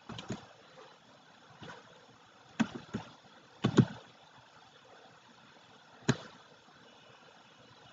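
Sharp knocks at irregular intervals over a faint hiss: a few weak ones in the first two seconds, a quick cluster of louder ones around three to four seconds in, and a single crisp knock about six seconds in.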